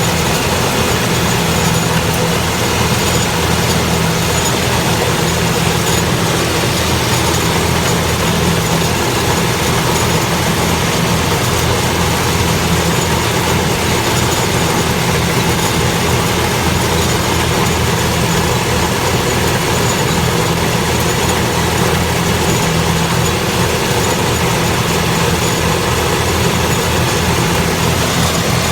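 Rice harvester running, its engine and machinery making a loud, steady drone that does not change.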